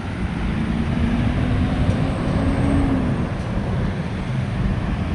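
Road traffic at a pedestrian crossing: a steady traffic rumble, with a motor vehicle passing whose engine note rises slightly and falls away in the first few seconds.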